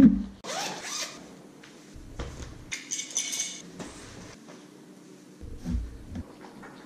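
Zippers rasping open on a backpack and clothing, with cloth rustling and small knocks as clothes are handled; a sharp thump right at the start is the loudest sound.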